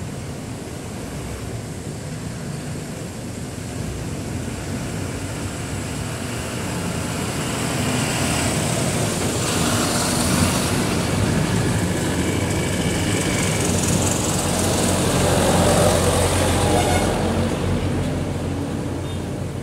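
Road traffic: a large bus drives past close by, its engine and tyres growing louder from about a third of the way in, followed by passing cars, before the noise eases off near the end.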